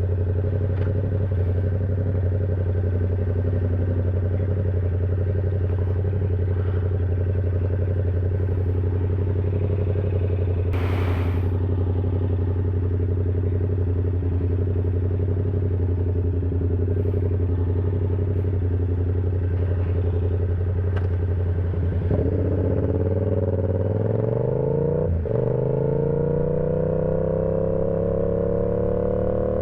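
Yamaha R7's 689 cc parallel-twin engine under way at steady revs, with a brief whoosh about a third of the way in. Near the end the revs dip, then climb steadily as the bike accelerates.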